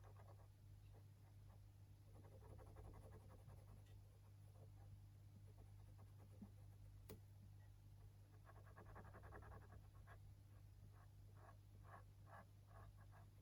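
Faint scratching of a gel pen scribbling on paper, with a quick run of short strokes near the end and a single click about seven seconds in.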